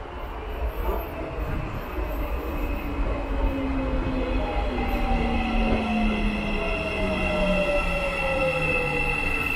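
Marmaray electric commuter train pulling into the platform and braking: the whine of its electric traction drive falls slowly in pitch over the rumble of the wheels, growing louder as it draws in.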